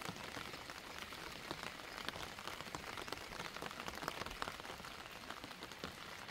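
Steady rain falling, an even hiss broken by many separate drop impacts.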